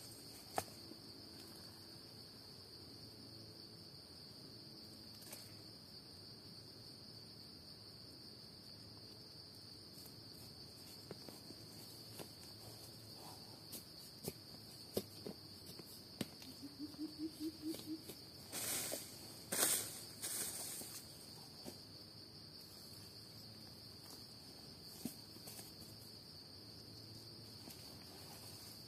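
Insects droning in one steady high-pitched tone in the forest, with scattered faint clicks and a few seconds of louder rustling about two-thirds of the way through.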